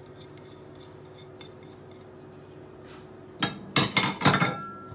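Kitchenware knocking and clinking against a glass mixing bowl as brown sugar is tipped in from a ceramic bowl and a wooden spoon goes in: faint light ticks at first, then a loud cluster of knocks about three and a half seconds in, ending in a short ring.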